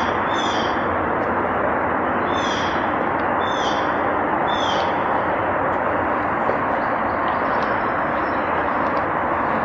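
Steady rushing noise. Over it, a short, high, falling call repeats five times in the first five seconds.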